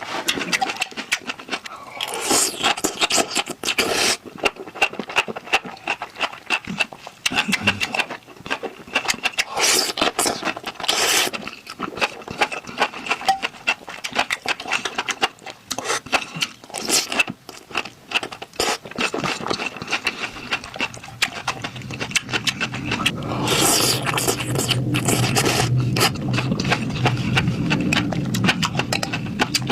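Close-miked eating sounds of someone chewing spicy food: a dense, irregular run of wet mouth clicks and crackles. About two-thirds of the way through, a steady low hum comes in underneath.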